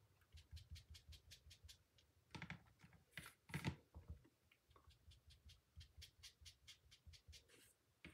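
Faint, irregular tapping of an ink sponge dabbing colour onto delicate die-cut paper leaves, with a few firmer dabs about three seconds in.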